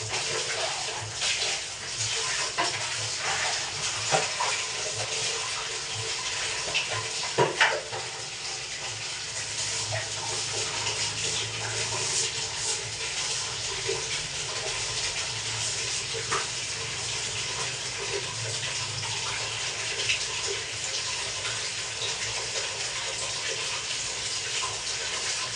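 Water running steadily from a tap, with occasional knocks and clatters of bathroom cleaning.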